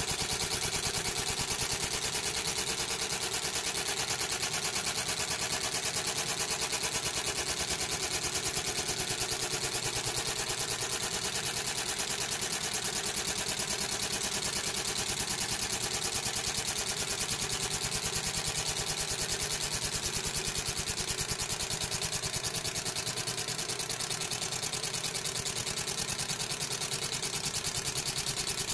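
30-watt fiber laser engraver etching ceramic tile: a steady, rapid buzzing with a hissy high edge as the beam's scanning head sweeps back and forth over the design.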